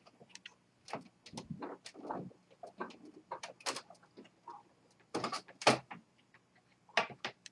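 Cartridge carriage of an Epson WorkForce 840 inkjet printer slid by hand along its rail, with the power unplugged so it moves freely, giving irregular plastic clicks and knocks. The loudest knocks come a little past the middle and again near the end.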